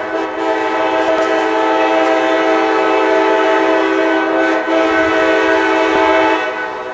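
Nathan K-5LA five-chime locomotive air horn (R24 bell arrangement) sounding one long, loud, steady chord, cut off about six and a half seconds in and leaving a short echo that fades away.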